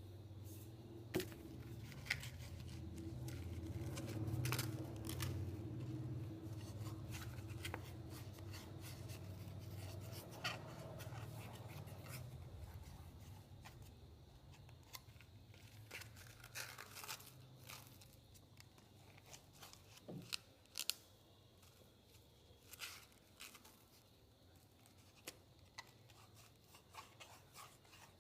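Knife scraping and nicking at a dry bamboo flute tube, carving out a finger hole: scattered short scrapes and clicks, with a low hum through the first half.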